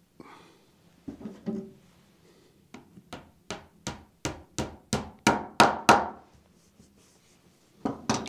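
Small hammer driving tacks through leather into the wooden frame of a blacksmith's bellows: about ten quick taps at roughly three a second, growing louder, then two more near the end, after some soft handling of the leather.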